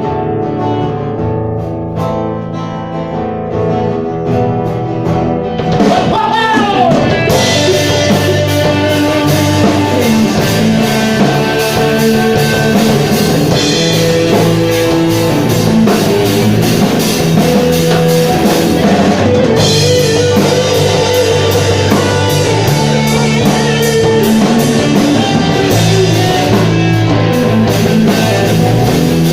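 Live rock band playing a song: electric guitar opens softly, then about six seconds in the drum kit and full band come in, with a singer's voice over them.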